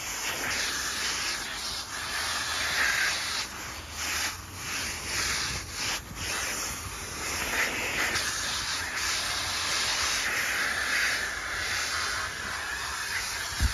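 Vacuum cleaner running with its crevice nozzle working over a fabric car seat: a steady suction hiss that rises and falls as the nozzle moves against the cloth.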